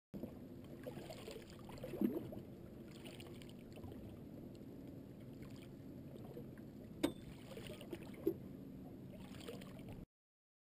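Water lapping against a small fishing boat, with a few knocks on the boat: a louder one about two seconds in and a sharp click about seven seconds in.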